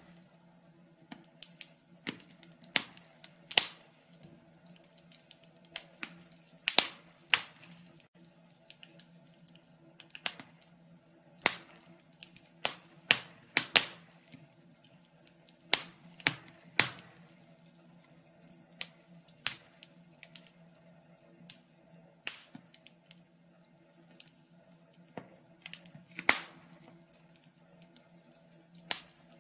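Wood fire crackling: irregular sharp pops and snaps at uneven intervals, some much louder than others, over a faint steady hum.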